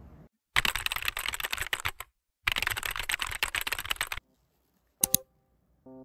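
Computer keyboard typing, in two rapid runs of about a second and a half each with a short break between, followed by a sharp double click about five seconds in.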